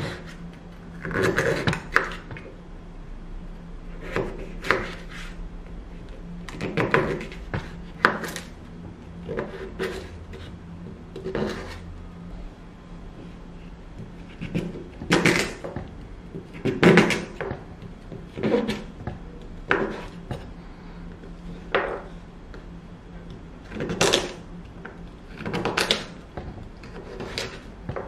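Kitchen knife chopping firm, peeled kabocha pumpkin on a wooden cutting board: irregular knocks as the blade goes through the flesh and hits the board, one every second or two.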